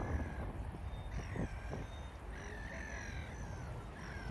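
Gulls giving harsh, repeated calls, one after another about once a second, over a steady low rumble.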